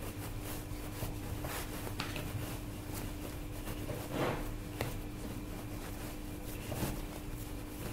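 Sourdough bread dough being kneaded by hand on a plastic board: soft scattered knocks and rubbing, the loudest about four seconds in, over a faint steady hum.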